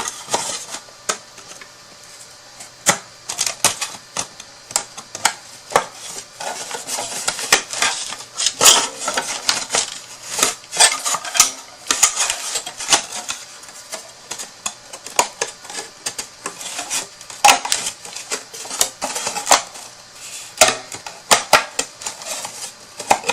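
Hand-assembled craft box being folded and slotted together: irregular taps, clicks and rustles of the box parts handled on a tabletop.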